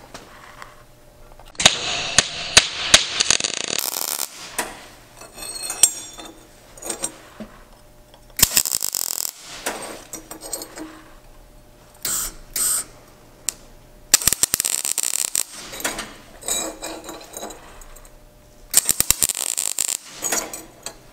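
MIG welding arc crackling in about six short bursts, each lasting half a second to two seconds, with pauses between as the welder stops and restarts the bead.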